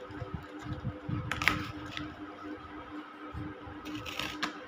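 Knife cutting and scraping through the packing tape and cardboard of a parcel, with sharp scrapes about a second and a half in and near the end and low handling thumps, over background music.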